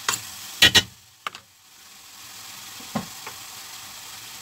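Chopped chicken sizzling in a stainless steel pan, with a spatula stirring it and knocking sharply against the pan several times in the first second and a half, then once more about three seconds in.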